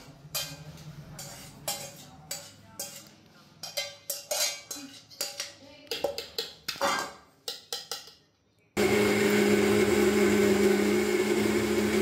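Short clinks and scrapes of a spoon against steel pots. About nine seconds in, a Midas electric mixer grinder switches on and runs with a loud, steady whir.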